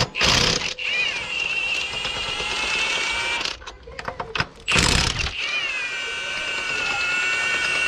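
A power tool's motor spins up with a rising whine and then runs at a steady high whine, twice. A loud, noisy, rattling burst comes just before each run, near the start and about five seconds in.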